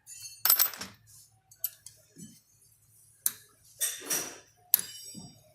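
Metal tools and scooter engine parts clinking and clattering during assembly: about six sharp, separate clinks and short rattles, the loudest about half a second in and around four seconds in.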